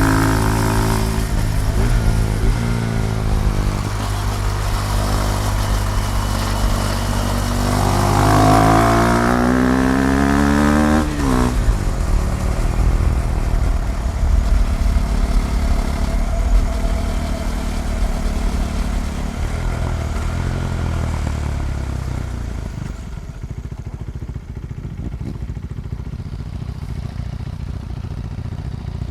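KTM Duke 390 single-cylinder engine being ridden. The revs ease off at first, then climb for a few seconds and drop sharply about eleven seconds in. After that it runs lower and steadier, getting quieter in the last few seconds.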